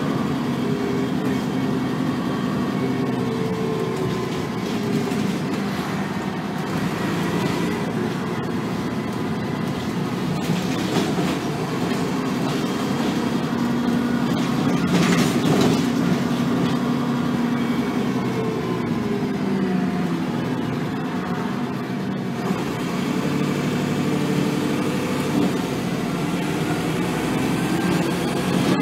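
Dennis Trident double-decker bus engine working hard, heard from inside the upper deck, its pitch rising and falling several times as the bus accelerates and the automatic gearbox changes gear. A single sharp knock comes about halfway through.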